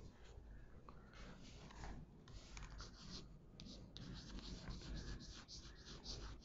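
Chalk writing on a chalkboard: faint, quick scratching strokes, most of them from about two seconds in.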